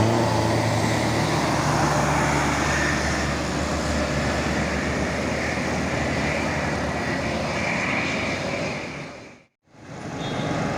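Diesel engine of a large tour bus running as the bus goes past, with a steady rush of engine and road noise. The noise cuts off suddenly about nine and a half seconds in and comes back a moment later.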